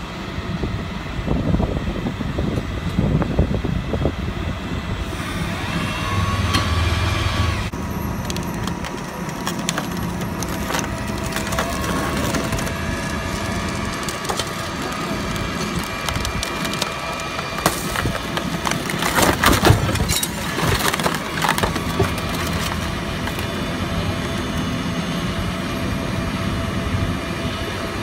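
An overturned SUV is winched over from its roof onto its side by a tow truck's cable, with crunching, cracking and scraping of metal and glass against the pavement. The loudest crunches come about two-thirds of the way in, over the steady running of the wrecker's engine.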